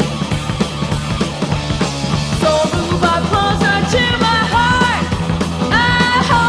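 Recording of a heavy metal song: a full band of drums, bass and distorted electric guitars playing steadily. A higher melodic line of held, bending notes rises over it from about halfway through.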